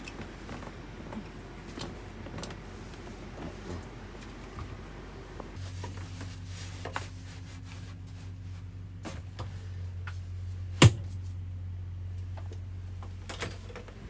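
Small clicks and knocks of things being handled in cabinets and doors, with one sharp click about three quarters of the way through. A steady low hum comes in a little before halfway.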